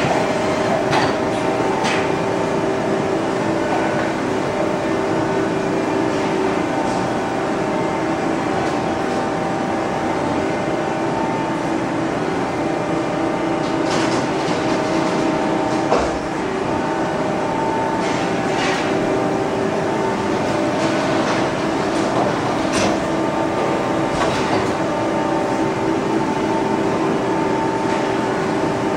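Trumpf TruMatic 2020R CNC turret punch press running, a steady mechanical hum made of several held tones, with a scattering of sharp clicks and clunks at irregular times.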